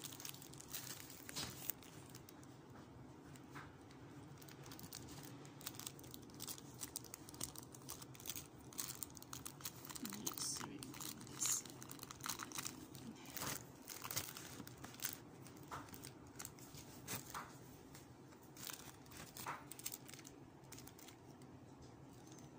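Clear plastic packaging film crinkling as it is handled, in irregular crackles that are busiest around the middle.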